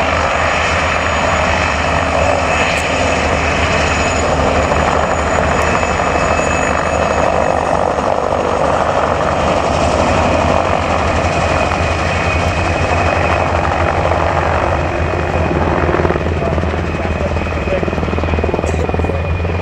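Mil Mi-2 helicopter flying a low pass: its twin turboshaft engines give a steady turbine whine over the fast, low beat of the main rotor.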